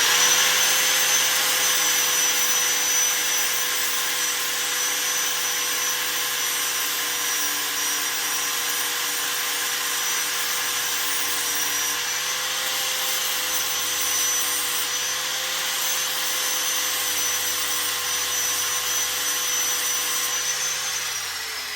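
High-speed rotary power tool, such as a die grinder, spinning up to a steady high-pitched whine and running for about twenty seconds before winding down. It is dressing down a warped, caved-in exhaust sealing surface to cure an exhaust leak.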